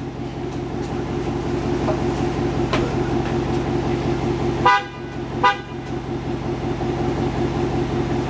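Train-horn air compressor running with a steady hum, airing up. The truck's regular horn honks twice briefly about halfway through.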